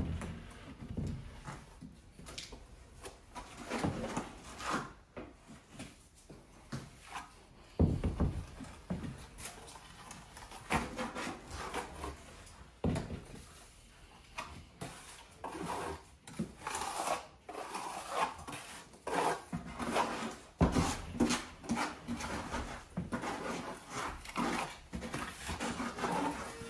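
Irregular scraping, rubbing and knocking from hand work on building materials, with a few heavy thumps.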